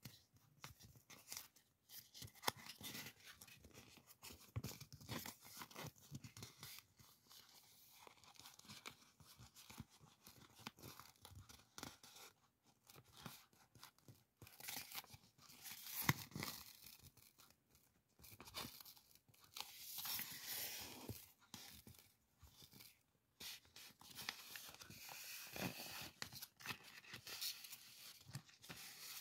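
Paper masking tape being peeled off its roll and handled: faint, irregular crackling and rustling with sharp little clicks as the strip comes away.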